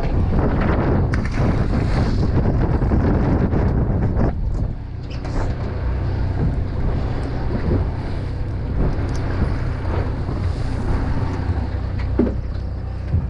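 Wind buffeting the microphone over the steady low hum of a fishing boat's engine running.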